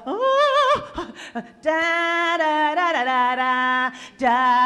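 A woman singing unaccompanied, holding a few long notes and sliding between them, with the pitch stepping lower after about three seconds.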